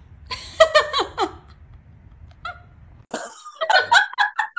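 Laughter: a burst of laughing about half a second in, then a quick run of short 'ha-ha' pulses near the end.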